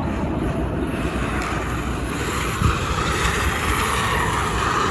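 Haiboxing 2997a RC car driving, its electric motor and tyres making a steady running noise that grows a little stronger about halfway through, over a low rumble of wind on the microphone.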